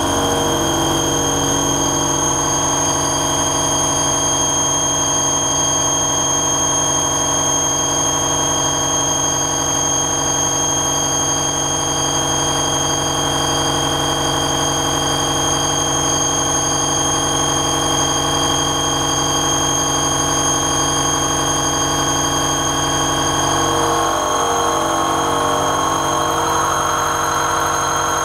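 Helical side-milling cutter with indexable inserts cutting tool steel dry: a steady, loud machining whine made of several held ringing tones. Near the end the tones shift as the cut changes to the left-helix cutter.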